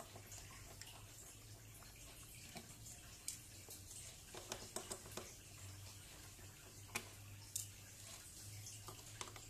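Faint scattered clicks and light taps as fingers handle the parts of an opened Samsung Galaxy A8 (2018), its midframe and glass back cover, on a table, over a faint low hum.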